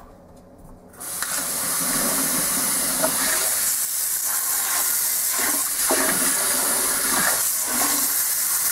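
Delta single-handle kitchen faucet switched on about a second in, its water running steadily into the sink with shifting splashing. It is being run to test a fresh leak repair.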